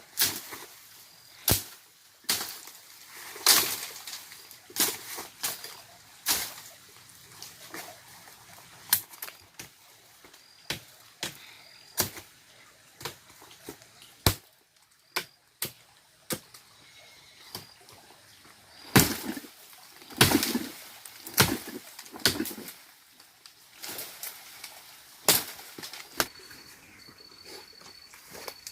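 Irregular sharp knocks and cracks, like hand work on wood or plant material, about one every one to two seconds, with a louder, denser run of blows about two-thirds of the way through. A faint high bird whistle repeats behind them.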